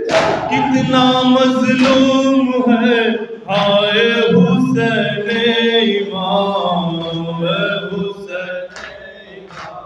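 Men's voices chanting a noha, a Shia lament, in long drawn-out notes, with a few sharp slaps of hands striking chests in matam near the start.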